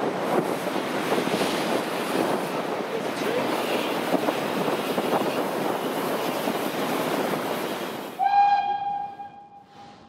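A Kitson-built steam tank locomotive working, heard as steady, dense noise. About eight seconds in, it cuts abruptly to a single steam whistle blast on one steady note, which fades away over about two seconds.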